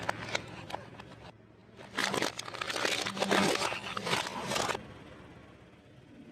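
Car tyre rolling over and crushing crunchy food, a dense crackling and crunching that lasts about three seconds from about two seconds in, after a few scattered cracks.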